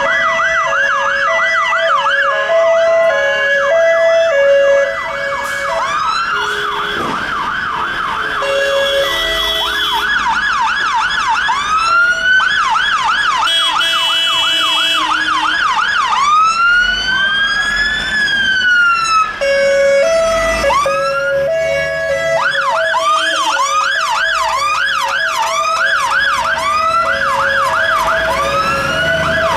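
Sirens of several UK fire engines sounding together on an emergency response: a fast yelp sweeping up and down several times a second, mixed with a two-tone hi-lo that drops out in the middle and comes back. About halfway through, one slow wail rises and falls.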